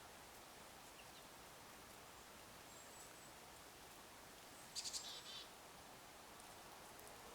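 Quiet steady outdoor hiss with a short burst of high, quick bird calls from a small songbird at a feeder about five seconds in, and a single thin high note a couple of seconds before it.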